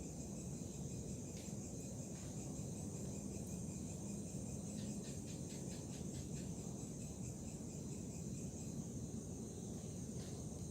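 A steady, high-pitched chorus of insects, with a low rumble of background noise underneath. About five seconds in comes a quick run of eight or so ticks.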